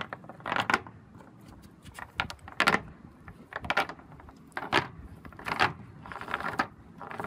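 Cast net's lead weights clacking and knocking against wooden deck boards as the net is handled, in irregular clatters about once a second, the loudest about two and a half seconds in.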